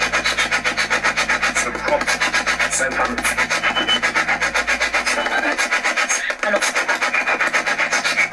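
Spirit box sweeping rapidly through radio frequencies: a loud, choppy stream of static and snatches of broadcast sound, chopped about eight or nine times a second, cutting off suddenly near the end.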